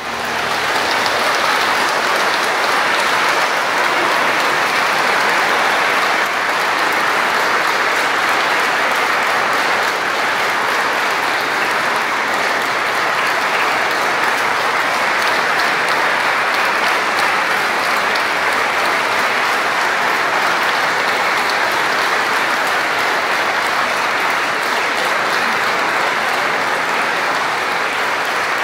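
Audience applauding steadily, a dense even clapping that starts suddenly as the piano stops.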